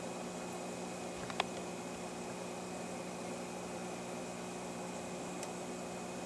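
Steady hum and hiss of a reef aquarium's running equipment (filter, protein skimmer and powerhead pumps), with one faint click about a second and a half in.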